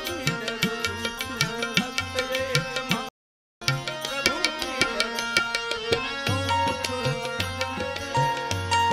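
Devotional bhajan music: a harmonium holding chords over a steady hand-drum rhythm, with the singer's voice in places. The sound cuts out completely for about half a second around three seconds in.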